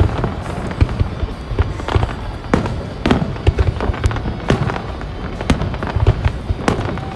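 Aerial fireworks shells bursting in a display: many sharp bangs in quick, irregular succession over a continuous low rumble.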